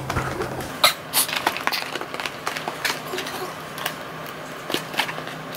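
A cardboard product box being opened and handled: irregular taps, clicks and rustles of packaging, with a sharper tick about a second in.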